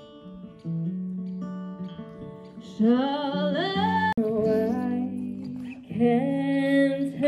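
A woman singing to her own acoustic guitar. Guitar notes ring alone for the first few seconds, then sung phrases with sliding pitch come in over the guitar about three seconds in. The sound cuts out briefly about four seconds in.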